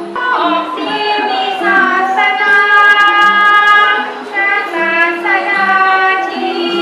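Music with a child's sung voice: held melodic notes and short gliding phrases over a steady accompaniment.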